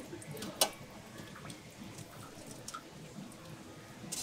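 A small metal cup scooping hot sugar syrup from a metal pot, with one sharp clink about half a second in and a few softer ticks and knocks of metal on metal.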